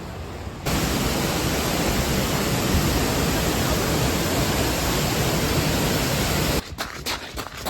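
Waterfall: a loud, steady rush of falling water that cuts in abruptly about half a second in and cuts off abruptly about a second before the end, followed by a few short knocks.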